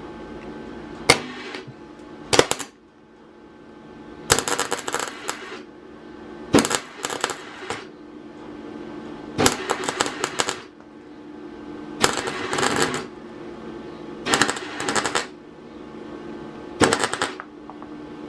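Welding arc crackling in about six short bursts of a second or so each, as weld is built up in dabs on a broken exhaust stud to give it something to grip for removal. A steady hum runs underneath, with two sharp clicks before the first burst.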